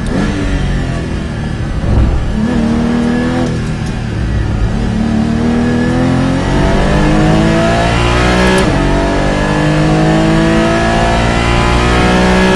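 Porsche Cayman GT4's 3.8-litre flat-six engine braking down for a slow corner, its pitch jumping up at downshifts about two and three and a half seconds in, then rising steadily under full acceleration, with one upshift about eight and a half seconds in before the revs climb again.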